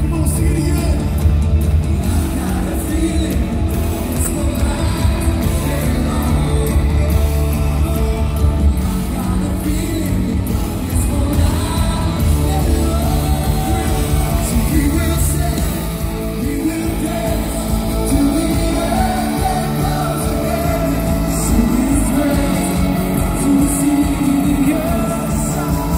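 Live worship band music with a lead singer: a loud song with full band. Heavy bass runs for the first several seconds and thins out about nine seconds in.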